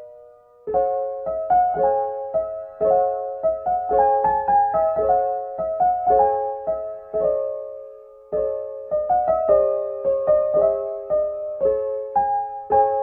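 Background music: a gentle piano melody of single struck notes ringing and fading, with a short pause about eight seconds in.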